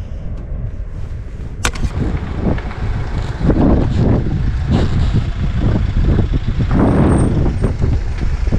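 Road vehicle on the move: a low, uneven rumble with gusts of wind buffeting the microphone, and a single sharp click a little under two seconds in.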